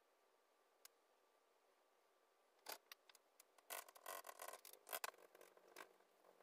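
Small sponge dabbing and rubbing white paint onto a painted board: a run of short, scratchy dabs and scrapes starting a little under three seconds in, densest around the middle.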